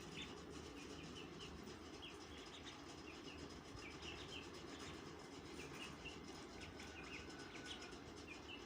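Chicks peeping: short, high chirps repeated irregularly, several a second, faint over a steady low background noise.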